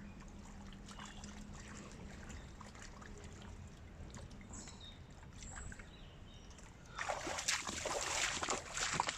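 Water splashing and sloshing, loud and irregular from about seven seconds in, after a quiet stretch of faint background hiss.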